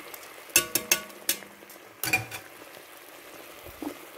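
Metal tongs clinking against an enamelled cocotte while turning chicken escalopes: a cluster of short ringing clinks about half a second to a second and a half in, another about two seconds in, and a light one near the end. Under them, the pan sauce simmers with a faint steady hiss.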